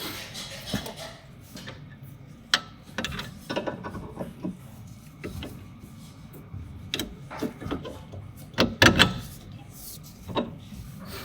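Irregular knocks, clicks and short scrapes of tools and metal parts being handled, with the loudest cluster of knocks about nine seconds in.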